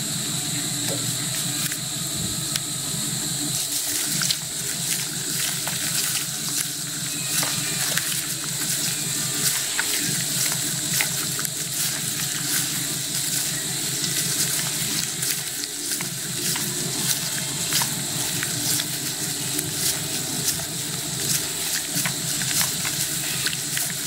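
Gloved hands squeezing peeled ripe papaya to a pulp in a basin of water and rice bran: irregular wet squelching and sloshing, with plastic gloves crinkling, over a steady hiss.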